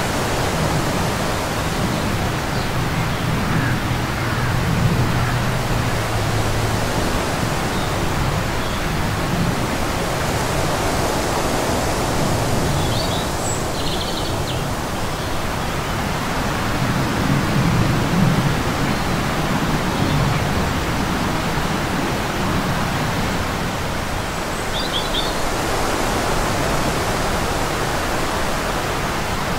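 Wind blowing across the microphone: a steady rushing hiss with a low rumble that swells and fades in gusts.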